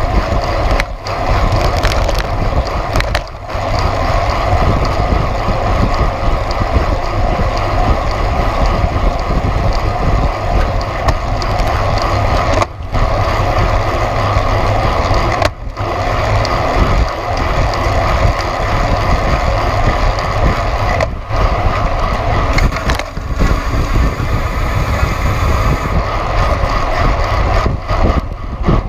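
Wind rushing over the microphone together with road-bike tyres rolling on asphalt at racing speed in a pack of cyclists, steady and loud with a few momentary dips.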